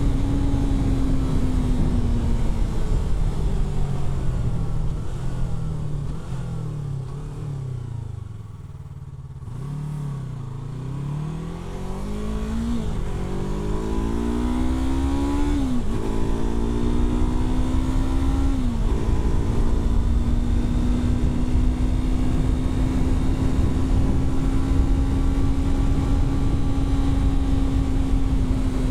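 Yamaha R3's 321 cc parallel-twin engine. It slows with falling pitch to a low about a third of the way in, then pulls hard through three gear changes, each rising run of revs cut by a sharp drop at the upshift. It then settles into a steady cruise.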